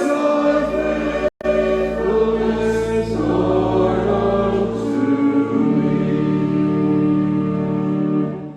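Many voices singing a hymn together in church, on held notes, closing with a long sustained chord that fades out near the end. The sound cuts out for an instant about a second and a half in.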